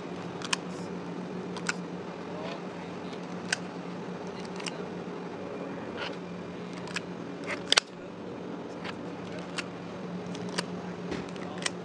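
Metal portion scoop clicking and clinking against stainless steel pans as mashed potato is scooped out, with about a dozen sharp clicks and the loudest two close together about two thirds in. A steady low hum lies underneath.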